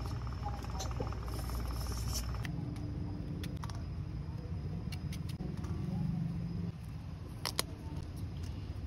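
Small knife slicing eggplant over a metal wok: a few sharp clicks, the loudest about seven and a half seconds in, over a steady low background rumble.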